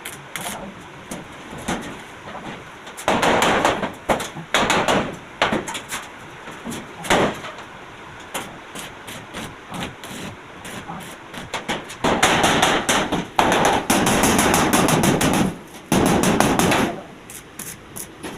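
Arc welding on a steel gate: several short bursts of dense crackling, each about a second or so long, most of them in the second half, with scattered sharp clicks and knocks in between.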